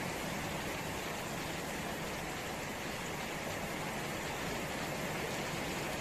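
Steady rain falling on a puddled yard and garden plants: an even hiss that keeps a constant level without let-up.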